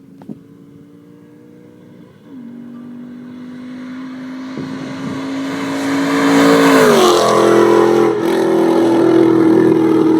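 Modified 2006 Ford Mustang GT's 4.6-litre V8 through long-tube headers, an X-pipe and a Borla axle-back exhaust, pulling hard. It starts as a quiet steady hum, then grows louder from about two seconds in. Its pitch falls sharply about seven seconds in, and it stays loud to the end.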